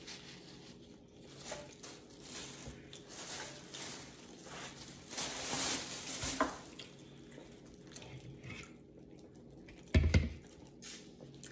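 Soft rustling and wiping of a paper napkin, swelling for a moment about halfway through. About ten seconds in comes a single sharp knock with a dull thud as the glass serving bowl is moved on the table.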